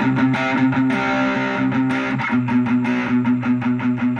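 Electric guitar through a Vox VR30 Reverb combo amp on its overdriven sound, played as fast palm-muted picking on repeated low notes.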